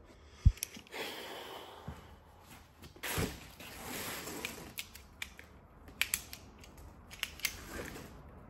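Scattered snips, clicks and rustling as truck seat upholstery is cut and handled at the side of the seat back by its frame, with one dull knock about half a second in.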